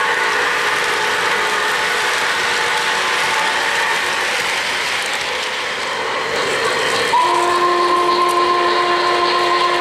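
O-gauge model trains rolling on three-rail track, a steady mechanical rattle of wheels and motors. About seven seconds in, a model steam locomotive's electronic steam whistle starts suddenly and is held as one steady tone.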